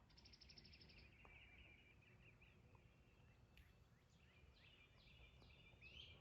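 Faint wild songbirds singing. A fast trill of rapidly repeated notes comes in the first second, then scattered chirps, then a run of quick down-slurred notes near the end, over a low outdoor rumble.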